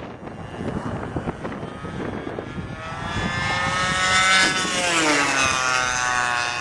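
Model airplane's O.S. Max 120 glow engine running in flight, with wind on the microphone at first. Its whine grows louder from about three seconds in, then drops in pitch as the plane flies past.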